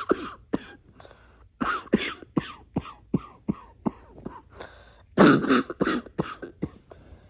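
A person coughing in runs of short, rapid coughs, several a second, with the loudest run about five seconds in.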